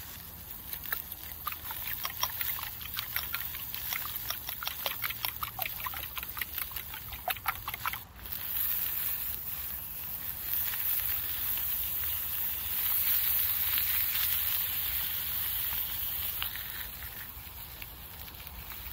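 A fork whisking eggs in a glass bowl, quick clicking taps for about eight seconds. Then chicken sausages sizzle in a frying pan on a gas canister camping stove, a steady hiss that swells a little.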